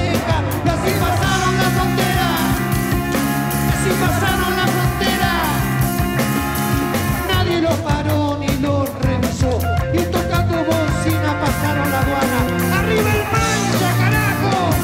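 Live rock band playing at a steady loud level, with drum kit, bass and electric guitars.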